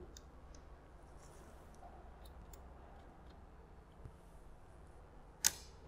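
Faint scattered clicks and ticks as a metal ball hanging on a thread in a collision-pendulum apparatus is drawn aside and set against the magnet that holds it, with a small knock about four seconds in and a brief louder sound near the end.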